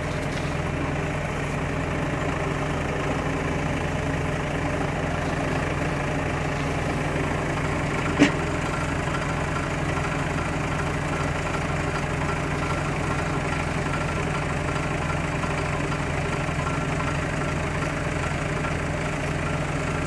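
An engine idling steadily, with one sharp click about eight seconds in.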